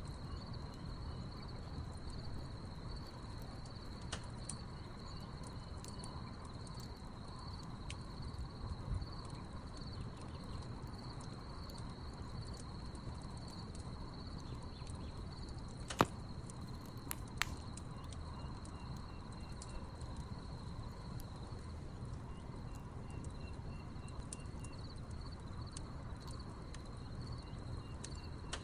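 Wood campfire burning with a low rumble and scattered sharp crackles and pops, the loudest about halfway through, under a steady high trill of crickets and a fainter pulsing insect chirp.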